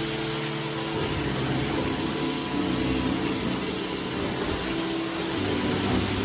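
Household vacuum cleaner running steadily, its motor hum shifting in pitch a few times.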